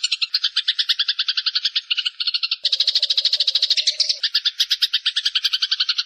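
Songbird's rapid pulsed trill, a fast string of high buzzy notes. The trill switches abruptly to a different, denser trill twice, as in a spliced birdsong-mastering recording.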